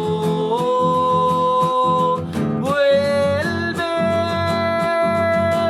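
Acoustic guitar strummed in an even rhythm under a singing voice that holds long notes, stepping up in pitch about half a second in and again near three seconds in; the word "vuelve" is sung near the end.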